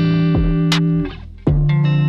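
Background music played on guitar: one chord held and fading, then a new chord struck about one and a half seconds in.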